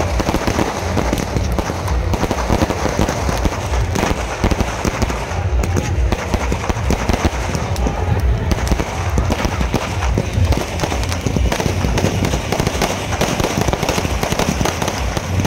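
Aerial fireworks bursting in a dense, unbroken barrage, sharp bangs and crackles following one another many times a second.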